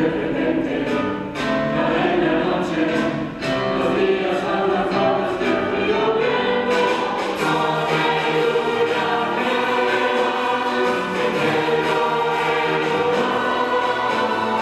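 Mixed choir singing a Spanish Christmas carol (villancico) in full voice, accompanied by an orchestra of strings.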